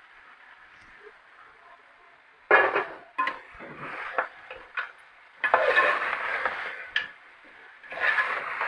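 A metal spoon clattering and scraping against a cooking pot in several bursts, starting about two and a half seconds in, as cooked beef is tipped into the fried masala and turned.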